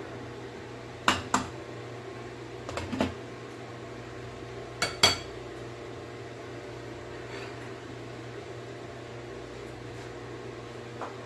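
A metal spoon knocking against a pan while stirring rice into curry, then a glass lid set down on the pan with a ringing clink about five seconds in, the loudest sound. A steady low hum runs underneath.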